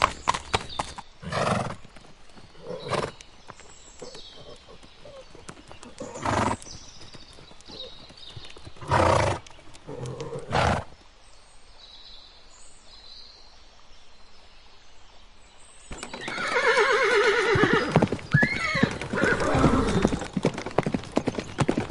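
Horse sounds: a quick run of hoof clops at the start, several short separate sounds over the next ten seconds, then a long neigh with a wavering pitch from about three quarters of the way in.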